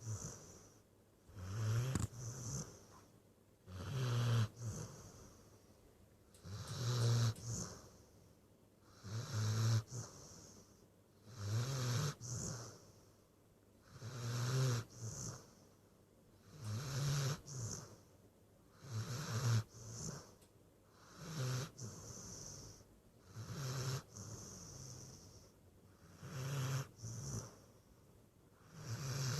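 A dog snoring steadily in its sleep, about one snore every two and a half seconds. Each snore is a low rumble with a breathy hiss.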